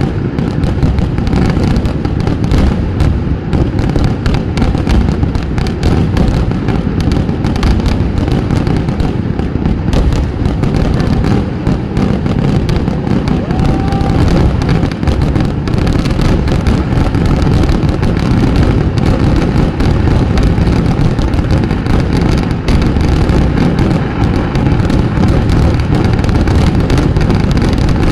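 A fireworks display: a dense, unbroken barrage of firecracker blasts, so close together that they run into one continuous din with no pauses.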